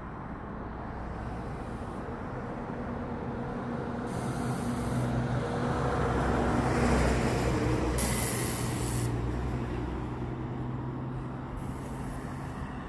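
Jet airliners taxiing past: a steady engine hum that swells to its loudest about seven seconds in, then fades.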